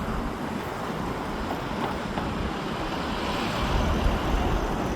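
Road traffic at a city intersection: a steady hum of passing cars, with a deeper vehicle rumble building near the end.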